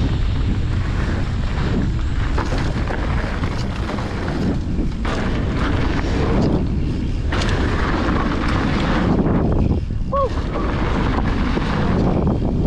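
Mountain bike being ridden fast down a dirt trail: wind buffeting the microphone over a steady rumble of tyres on the ground, with the noise dipping briefly several times.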